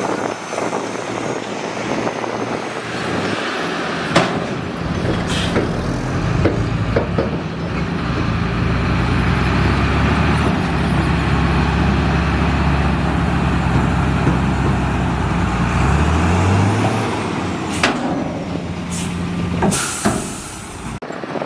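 Heavy dump truck's diesel engine running under load, rising briefly in pitch near the end before dropping away. A few sharp knocks, then a short air-brake hiss near the end.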